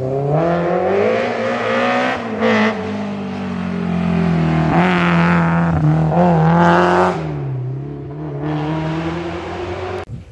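A historic rally car's engine revving hard as it accelerates through the gears, the note climbing and then dropping at each shift. It cuts off abruptly near the end.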